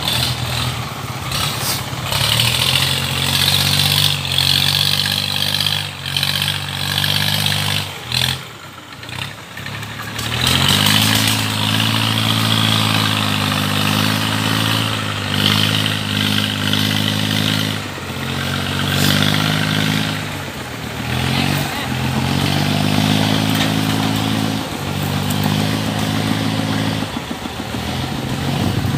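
An engine running and being revved up and down over and over, its pitch stepping between a few steady speeds, with a short drop-out about eight seconds in.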